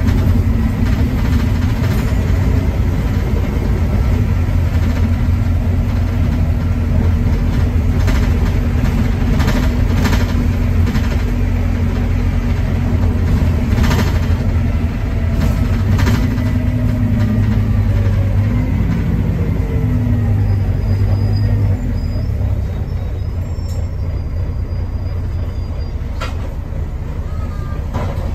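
Volvo B9TL double-decker bus's Volvo D9B 9.3-litre diesel engine running under way, heard inside the cabin, with scattered knocks and rattles from the bodywork. Around twenty seconds in, the engine note glides up and down, then the bus runs quieter.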